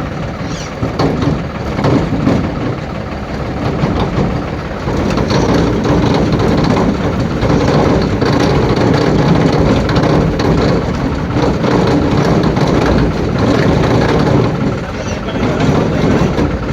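Combine harvester's engine running steadily, a loud continuous mechanical drone that grows a little louder about five seconds in.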